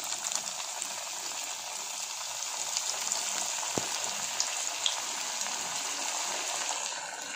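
Maggi-coated vegetable cutlets deep-frying in hot oil in a pan: a steady sizzle with small crackles and pops. It grows a little louder as a second cutlet goes into the oil in the first couple of seconds.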